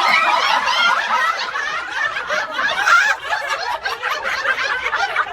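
Several people laughing and snickering at once, a continuous mass of overlapping laughs.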